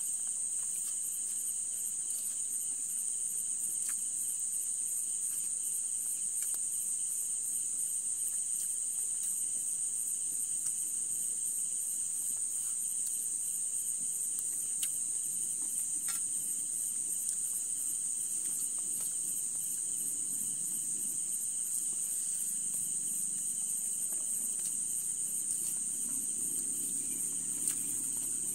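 Crickets chirping in a steady, unbroken high-pitched trill.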